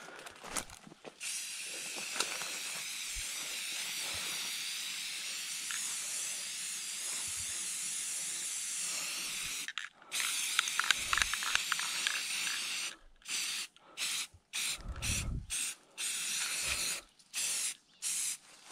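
Aerosol spray paint can spraying onto a tree trunk: one long, steady hiss of about eight seconds, a brief stop, then more spraying broken into a run of short bursts.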